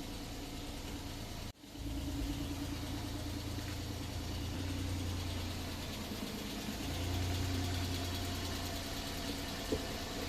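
A car engine running steadily at idle, with a low hum. A plain hiss comes first, then a brief break, then the engine; the hum swells a little near the end.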